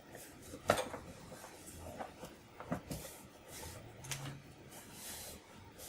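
Clicks and knocks of a Commodore 64's plastic case and keyboard parts being handled and fitted together, a handful of separate taps with the sharpest a little under a second in.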